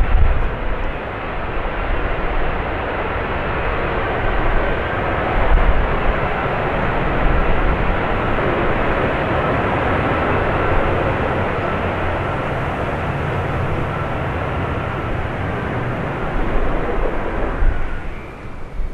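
F-35B Lightning II in vertical-landing mode, its F135 engine and shaft-driven lift fan giving loud, steady jet noise with a faint whine as it hovers and descends over the runway. Near the end the noise drops off sharply as the jet settles onto the runway.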